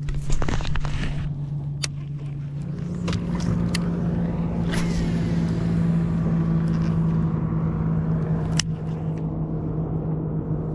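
Outboard motor of a bass boat running steadily, its pitch rising about two and a half seconds in as the throttle comes up, then holding. A few sharp knocks sound over it.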